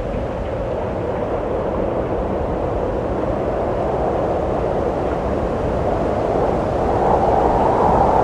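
Wind blowing steadily, an even rushing noise that swells a little near the end.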